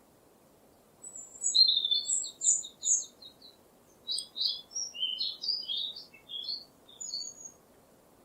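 Songbird singing. About a second in comes a fast run of repeated high chirps, followed by a varied series of quick rising and falling notes that stops shortly before the end. A faint steady hiss lies underneath.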